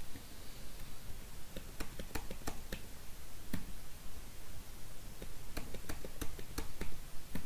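Irregular, scattered clicks of a computer keyboard and mouse as single values are typed into cells one after another.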